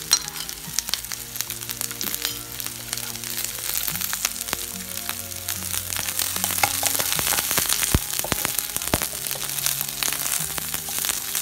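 Chopped carrot, onion and green capsicum sizzling in oil in a non-stick frying pan as a wooden spatula stirs them, with scattered clicks and crackles. Soft background music with held notes plays underneath.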